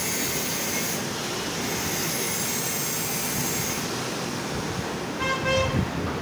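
Steady background rumble and hiss, with a short high-pitched toot lasting about half a second about five seconds in.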